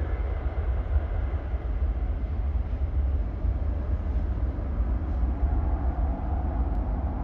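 Jet airliner engines at an airport, a steady loud rumble with a hiss above it.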